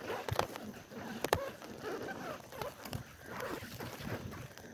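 A bicycle ridden on a wet paved path on nearly flat tyres: the tyres run on the pavement, and the bike knocks sharply twice over bumps in the first second and a half.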